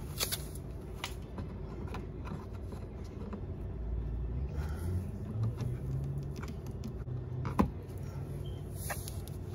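Light clicks and scrapes of a screwdriver prying at a plastic push-pin clip on a car's underbody panel, with one sharp click near the end, over a low rumble that swells for a few seconds in the middle.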